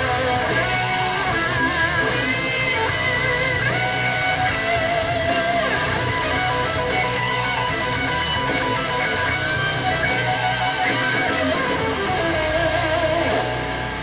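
Guitar-led rock instrumental played through a pair of DIY transmission-line speakers with 4-inch full-range titanium drivers: an electric guitar lead with bends and vibrato over strummed guitar and bass. The level drops slightly near the end.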